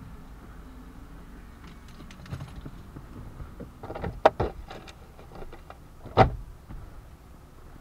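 Glove box of a Mitsubishi Lancer Evolution being opened and rummaged through: small plastic clicks and rattling, a sharp click about four seconds in, then a louder single clunk about six seconds in.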